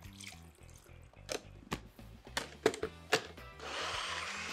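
A few sharp knocks and clicks as the NutriBullet's blade cup is fitted onto its motor base, then about three and a half seconds in the NutriBullet personal blender's motor starts and runs steadily, blending roasted vegetables and broth into a sauce.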